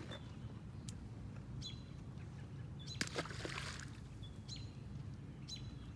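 Short high-pitched animal chirps repeating roughly once a second over a steady low hum. A sharp click and a brief hiss come about three seconds in.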